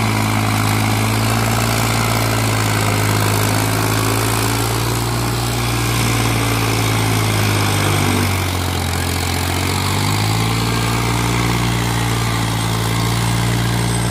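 New Holland 3630 tractor's three-cylinder diesel engine running hard as it pulls a cultivator through the soil. The engine note is steady, sags briefly about eight seconds in, then picks back up.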